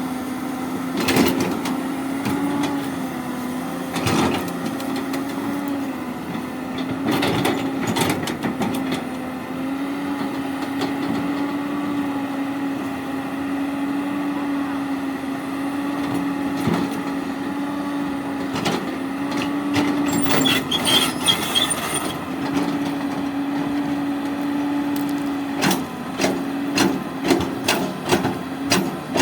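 Hydraulic excavator's diesel engine running steadily, with occasional clanks and knocks. A brief high squeal comes about twenty seconds in, and a run of quick knocks near the end.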